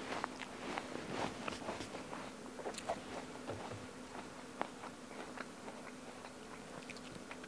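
A person biting into and chewing a crisp apple: quick crunching crackles, densest in the first few seconds and thinning out toward the end.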